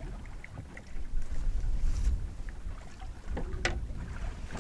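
Wind rumbling on the microphone aboard a small boat drifting on a swell, with light scattered ticks and one sharp knock about three and a half seconds in.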